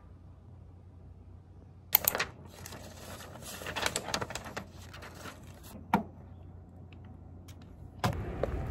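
Sheets of paper rustling as they are lifted and shuffled, with many small clicks and taps, a sharp knock about two seconds in and another near six seconds. Near the end a louder steady background noise comes in.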